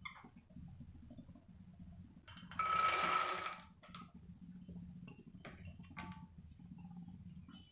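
Puffed lotus seeds (makhana) poured from a bowl into a non-stick pan: a brief rattling rush a little over two seconds in, then a few light clicks as the last seeds are tipped and tapped out.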